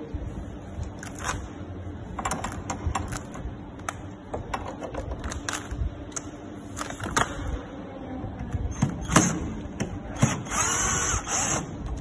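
A refrigerator door and its metal hinge parts being handled and fitted: a run of irregular clicks and knocks of metal and plastic, then a steadier rasping noise lasting about a second and a half near the end.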